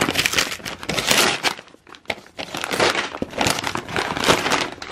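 Brown paper mailer crinkling and rustling in bursts as a gift-wrapped box is slid out of it, with a short lull partway through.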